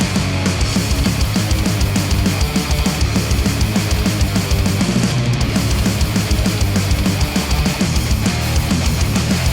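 Heavy rock track with a driving beat and a strong bass, played through Aune AR5000 headphones and picked up by measurement microphones at the earpads, with no singing.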